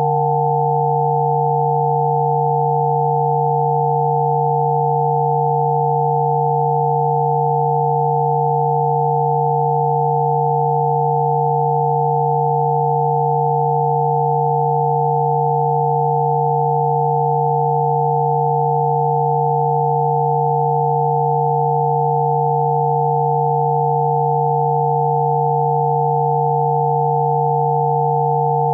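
Electronically generated Spooky2 Rife frequency tones: several pure sine tones sounding together and held perfectly steady, a low one with a cluster of higher ones above it.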